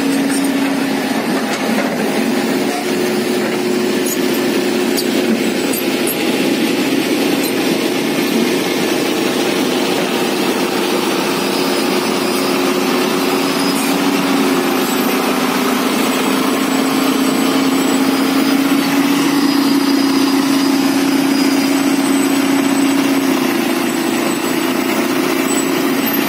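Diesel engine of a large tracked hydraulic excavator running steadily, its note stepping slightly in pitch a couple of times.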